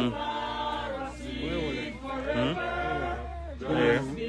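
A group of people singing a hymn together, unaccompanied, with several voices holding and bending notes at once.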